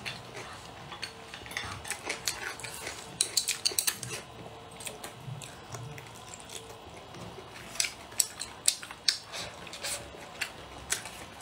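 Chopsticks clicking and scraping against bowls during a meal, in scattered clusters of sharp clicks.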